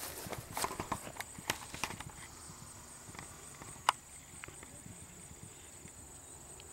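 A horse's hoofbeats on turf: a run of uneven knocks in the first two seconds, then fainter, with one sharp knock near four seconds.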